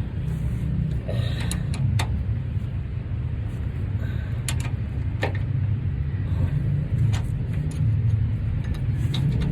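Steady low mechanical rumble, like a running engine, with scattered sharp clicks on top.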